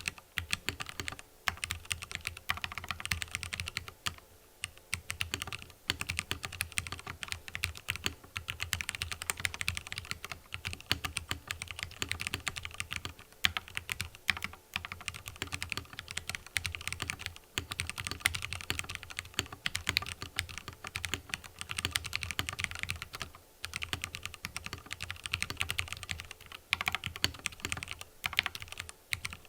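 Continuous typing on a mechanical keyboard with fully lubricated Cherry MX Red 45 g linear switches. It is a dense, quick stream of keystroke clacks, broken by a few brief pauses.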